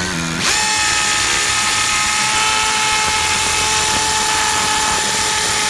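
Makita TP141D 18V cordless 4-mode impact driver in vibration hammer-drill mode, drilling a masonry bit into hard mortar. It starts about half a second in and runs steadily under load: a high motor whine over a constant noise.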